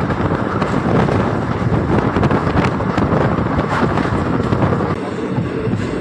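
Passenger train coach running at speed, heard from its open doorway: wind buffeting the microphone over the rumble and clatter of the wheels on the rails. The rush eases slightly about five seconds in.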